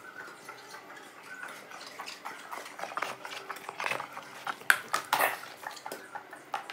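German Shepherd moving about on a hard tiled floor: scattered light clicks and clinks, with two louder sharp knocks a little past the middle.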